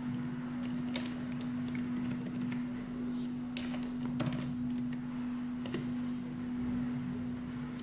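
Scattered light clicks of a computer keyboard being typed on, irregular and quiet, over a steady low hum.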